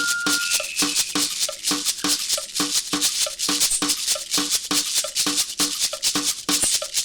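Music track with a fast, even percussion beat of about three strokes a second, each stroke pairing a short low note with a shaker-like rattle.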